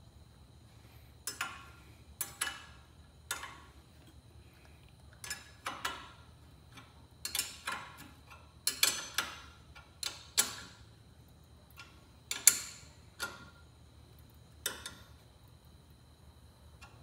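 A hand wrench clicking and clinking on the exhaust header bolts of a small go-kart engine as they are tightened. The clicks are short and sharp, come at irregular times and sometimes in quick groups, with pauses between.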